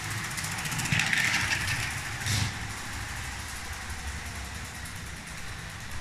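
Lego 12V electric train (set 7725) running along plastic track, its motor and wheels making a steady rolling whir, with a louder stretch about a second in and a short burst just after two seconds.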